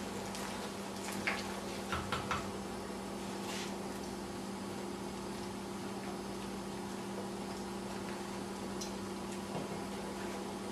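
Pots of soup and pasta water simmering on an electric stovetop under a steady low hum and hiss. A few light clicks of a utensil or hand against a metal pot come about a second in and again around two seconds in.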